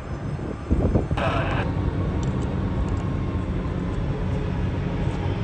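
Steady rumble of jet airliner engines at an airport, with a short hissing burst about a second in.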